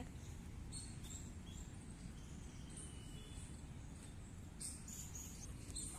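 Quiet park ambience: a low, steady rumble with faint, high bird chirps now and then.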